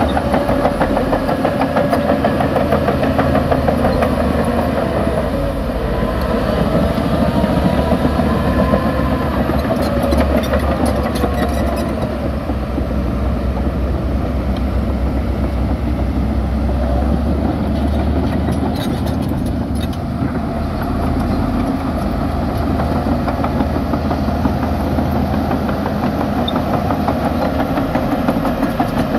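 Heavy diesel engines of a Shacman dump truck and a Shantui DH17 C2 crawler bulldozer at work: the truck tips a load of dirt and pulls away, then the dozer pushes the dirt. The engine pitch rises and falls during the first several seconds, and there are a few sharp clanks.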